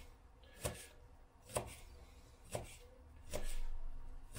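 Kitchen knife chopping garlic cloves on a wooden cutting board: single short knocks about once a second, five in all, with a longer, louder stretch of cutting near the end.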